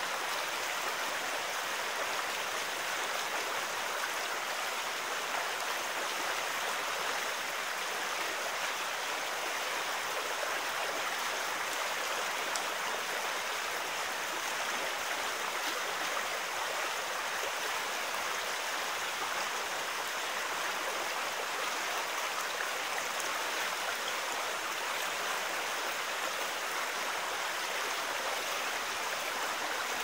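River water rushing steadily over a low rock ledge and through shallow rapids, a constant hiss of white water.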